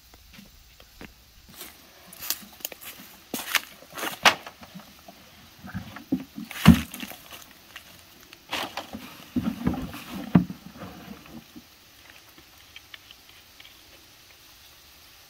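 Handling noises: footsteps on a dry path and a plastic bucket knocked about and set down, with a thump about halfway through and a cluster of knocks a few seconds later. Near the end there are only a few faint ticks.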